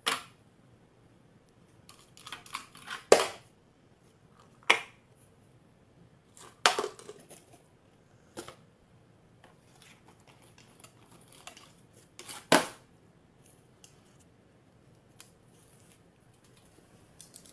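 Scattered short rustles and taps of small cardboard packaging being handled on a glass tabletop, a second or more apart with quiet between; the loudest come about three seconds in and again about two-thirds of the way through.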